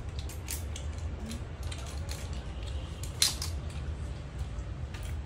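Metal chopsticks tapping and scraping against a glass bowl as food is stirred, with scattered clicks and one sharper clink a little past halfway, over a steady low hum.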